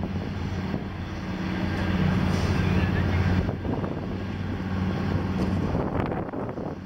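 An engine running with a steady low hum, swelling about two seconds in and easing off after about five seconds.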